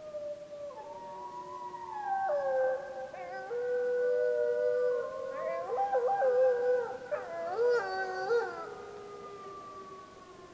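A pack of gray wolves howling together in chorus, several voices at different pitches overlapping, the pack answering a pup's howls. The notes hold long and then waver and break in quick jumps in the middle of the chorus, which fades near the end.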